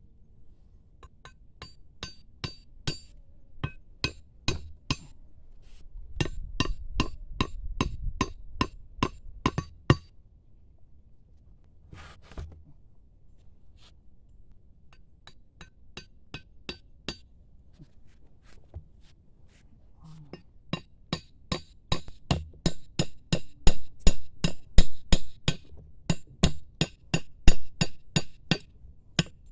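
Wooden stakes being driven into sandy ground with a machete, a series of sharp knocks about two to three a second, each with a light metallic ring from the blade. Two runs of strikes with a pause in the middle broken by a single knock.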